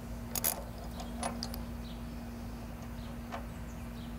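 A few scattered metallic clicks from a socket wrench and extension working a spark plug loose from a small-engine cylinder head, over a faint steady hum.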